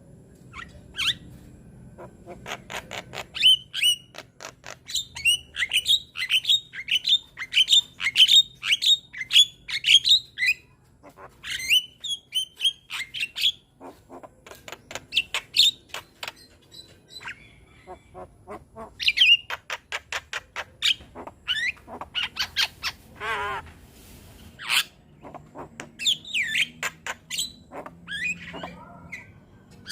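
Young Javan myna singing a fast chattering song of short, sharp squawking and whistled notes in quick runs, with a brief wavering trill about three-quarters of the way through.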